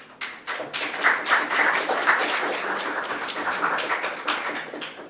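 Audience applauding: many hands clapping, starting at once and tailing off near the end.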